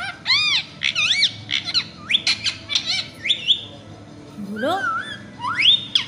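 Indian ringneck parakeet calling: a quick series of short, high chirps and squawks, with a rising whistled note about three seconds in and another near the end.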